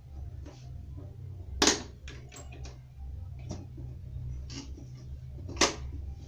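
Scattered sharp clicks and light knocks, two of them much louder, about a second and a half in and near the end, over a steady low hum.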